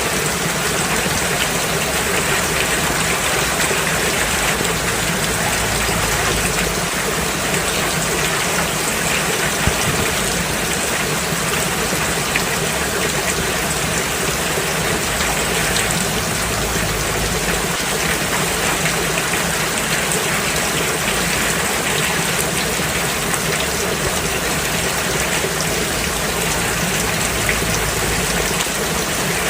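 Steady rain falling, a dense even hiss of many small drops striking a surface.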